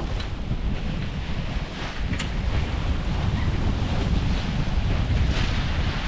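Wind buffeting the microphone in a low, steady rumble, with water swishing along the hull of a sailboat under sail and a few soft swells of splash.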